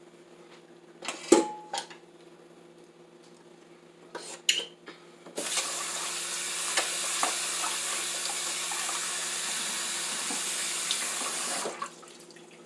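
Kitchen tap running in a steady stream for about six seconds, turned on about five seconds in and shut off near the end. Before it come a few light knocks and clicks.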